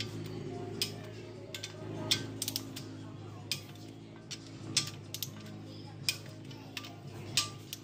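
Long-handled socket wrench clicking while the main bearing cap bolts of a Honda F20B engine block are tightened: single sharp clicks, irregular and roughly a second apart. Steady background music runs underneath.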